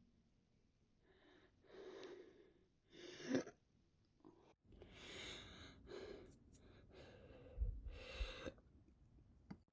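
A woman's quiet breathing, several breaths in a row, broken by a sharp hiccup about three seconds in and two short jolts near the end.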